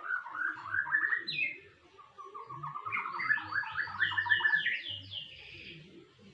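Domestic canary singing in fast trills: a short phrase, a brief pause, then a longer phrase of rapid repeated notes that climbs higher before it ends.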